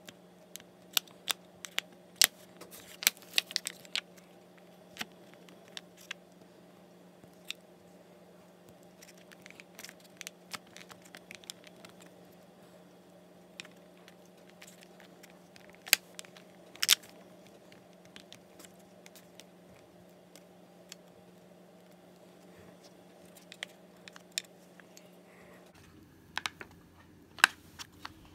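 Thin clear plastic candy moulds being handled, pressed and flexed, giving scattered sharp clicks and crinkles as soft candy is pushed in and popped out. A steady low hum runs underneath and changes near the end.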